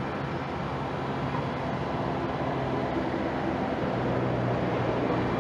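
Heavy diesel engine of the machine lifting a bridge span, running steadily under load with a low hum that slowly grows louder.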